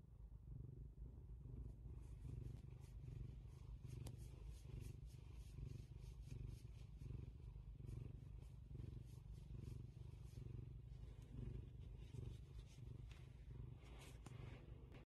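Tabby kitten purring steadily, a low, gently pulsing rumble, as it is stroked. Faint crackles sound over the purr from about two seconds in.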